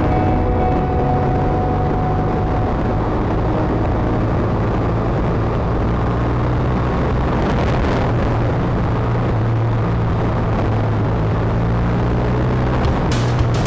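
BMW R1200RS boxer-twin engine running steadily while riding, mixed with wind and road noise on the bike-mounted microphone. A couple of sharp clicks come in right at the end.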